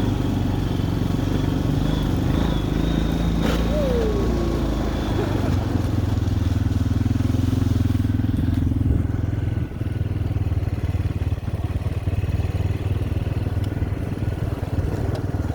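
Quad (ATV) engine running steadily, a low continuous drone.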